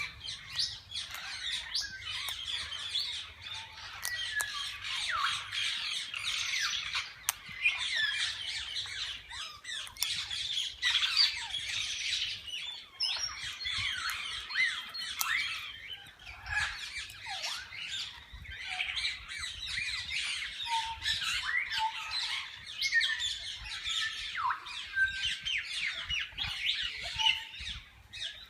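A mixed flock of parakeets calling at once: constant overlapping chattering, chirps and squawks.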